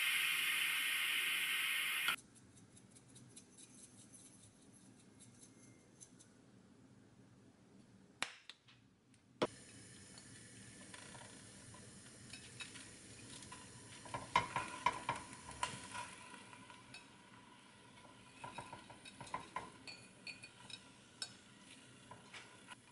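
A loud steady hiss that cuts off suddenly, then quiet handling as raw pork belly slices and chopped vegetables are laid by hand into a stainless steel pot. Soft rustles and scattered clicks, with a cluster of light metallic clinks, a bowl or utensil against the pot, about two thirds of the way through.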